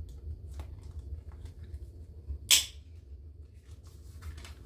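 Metal six-ring binder mechanism snapping shut once, sharply, about two and a half seconds in, amid soft clicks and rustles of a plastic cash envelope being worked onto the rings.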